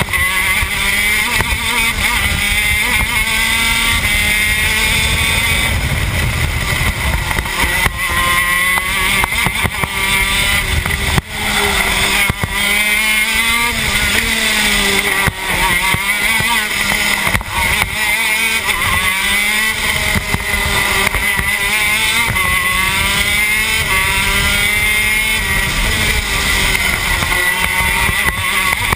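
TM K9c 125cc two-stroke shifter kart engine at racing speed, heard from the driver's seat, its pitch climbing and falling again and again as it is revved out through the gears and backed off for corners. There is a brief drop in loudness about eleven seconds in.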